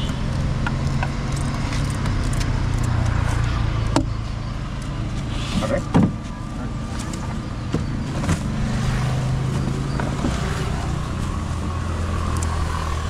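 A motor engine running steadily with a low hum, with a few sharp knocks over it, the loudest about six seconds in.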